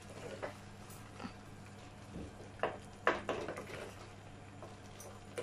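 Wooden spatula stirring thick mashed potato bhaji in an aluminium pressure cooker: a few soft scrapes and knocks against the pot, the loudest cluster about three seconds in, over a faint steady hum.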